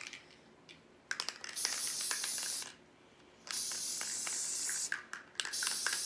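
Aerosol can of Loctite general-purpose spray adhesive hissing in three steady sprays of about a second each onto a bunch of dry moss, with crackly rustling of the moss being handled between sprays.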